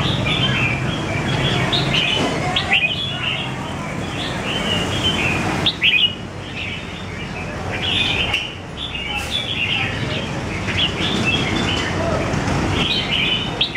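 Red-whiskered bulbul singing: short, bright chirping phrases repeated every second or two, over a low steady background noise.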